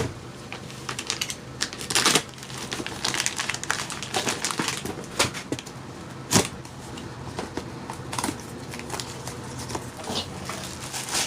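Cardboard box and packaging of a new cordless impact wrench being handled and opened: an irregular run of sharp clicks, taps and rustles, with a louder knock about two seconds in and another at about six seconds.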